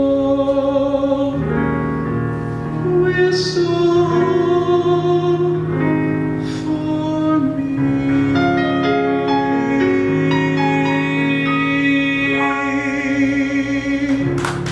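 Closing bars of a show tune on piano, with a male voice holding long, wavering notes over sustained chords.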